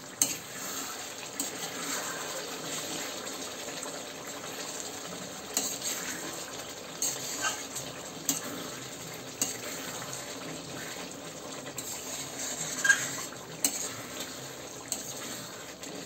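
A spatula scraping and clinking against a steel kadai as a thick mutton curry is stirred, in irregular strokes over a steady low hiss.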